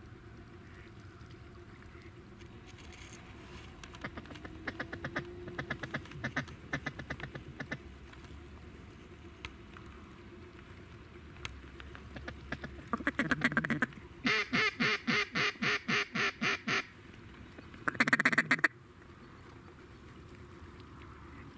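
Mallard duck call blown hard in a run of quick quacks: a soft, fast chatter first, then a short burst, a loud string of about ten evenly spaced quacks at roughly four a second, and one more short burst near the end.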